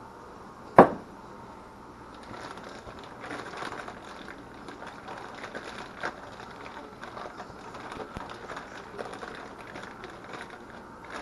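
A sharp knock about a second in as the measuring cup is set down, then the crinkle and rustle of a zip-top plastic bag being handled and squished as raw chicken chunks are worked in hot sauce.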